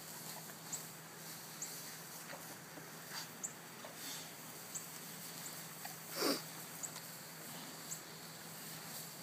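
Pigs rooting and snuffling in a fescue hay round bale, with light rustling of hay and one louder sound from a pig about six seconds in.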